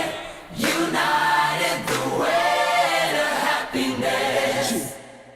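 A choir sings the song's closing chorus in sustained phrases, then stops about five seconds in and the sound fades away.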